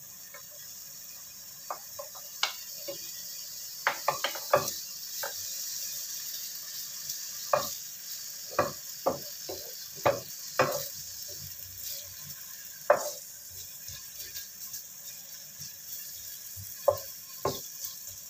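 Shallots, garlic and ginger frying in oil in a non-stick pan with a steady sizzle, while a wooden spatula stirs them, knocking and scraping against the pan at irregular moments, most often around the middle.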